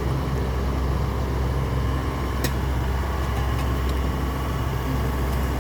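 Steady vehicle engine and road noise, a constant low hum, with a faint click about two and a half seconds in and another near the end.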